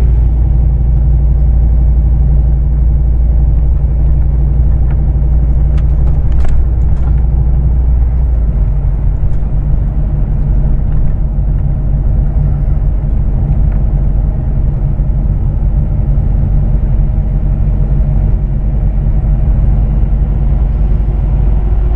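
Scania truck's diesel engine running steadily, a deep drone heard from inside the cab. A few light clicks come about six seconds in, and the deepest part of the drone drops in level about eight seconds in.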